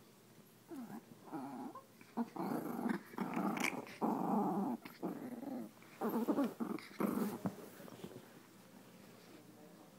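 Two small dogs growling at each other while play-fighting, in a series of rough bouts that die down near the end.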